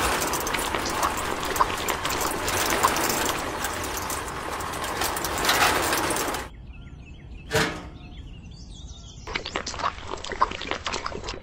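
A miniature toy cement mixer's drum turning with gritty cement mix inside, making a steady rushing rattle with scattered clicks. It cuts off sharply about six seconds in, leaving faint bird chirps and a single swish. Near the end come small crackling clicks and scrapes as wet cement is poured from a tiny bucket.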